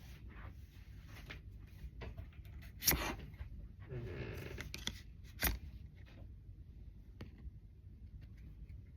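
Pokémon trading cards being handled and shuffled through by hand, card stock sliding and scraping against card stock, with two sharp snaps about three and five and a half seconds in.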